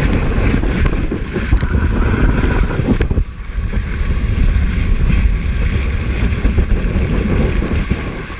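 Loud, steady rush of water and wind on the microphone, muffled through a waterproof camera housing, with a sudden drop about three seconds in before it builds back up.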